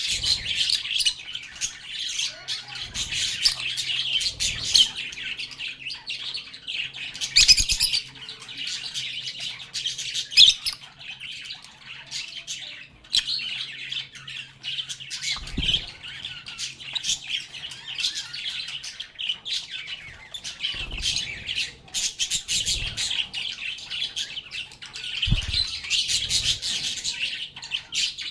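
A group of pet lovebirds (Agapornis) chattering continuously with rapid high chirps and occasional squawks, with a few soft thumps mixed in.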